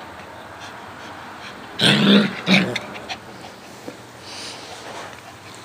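Small dogs play-fighting: two loud barks close together about two seconds in, a longer one then a shorter one.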